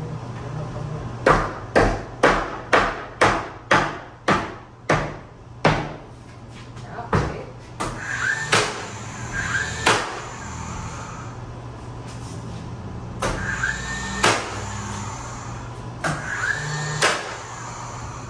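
Hammer blows on wood: a quick run of about ten strikes at roughly two a second, then a few single sharp knocks a few seconds apart, over a steady low hum.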